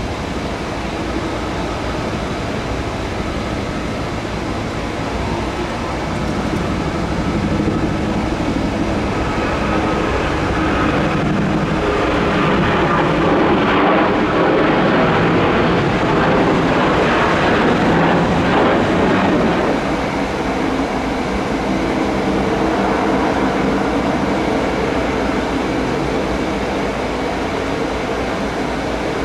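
Boeing 737-700's CFM56-7B turbofan jet engines at takeoff thrust, a steady jet noise that grows louder about a quarter of the way in as the aircraft rolls past and lifts off, loudest around the middle, then staying strong as it climbs away.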